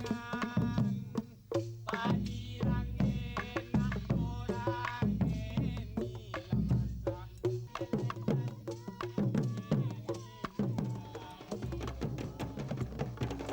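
Music played on Balinese bamboo instruments: tuned bamboo struck in a quick, busy rhythm, each note ringing briefly, over a deep low pulse.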